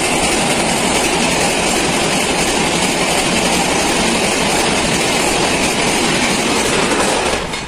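Humsafar Express passenger coaches passing at speed at close range: a loud, steady rush of wheels on the rails. It stops abruptly near the end.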